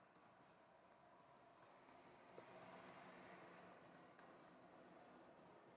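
Faint typing on a computer keyboard: an irregular run of light, quick key clicks as a user name is entered.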